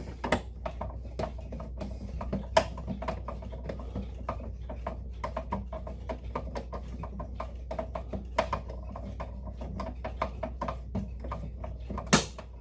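Hand screwdriver driving a screw into the Seiko wall clock, a stream of small clicks and scrapes as the screw is turned in, with a sharper knock a couple of seconds in and another near the end. A low steady hum runs underneath.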